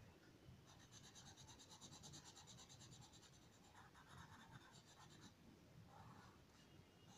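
Faint pencil scratching on paper: quick back-and-forth shading strokes filling in a small area, running fast and even from about a second in and stopping a little after five seconds.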